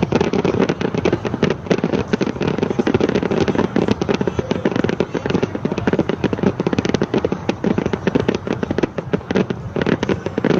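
Fireworks display in a rapid barrage: many sharp bangs and crackles a second, starting suddenly and packed close together, thinning slightly near the end.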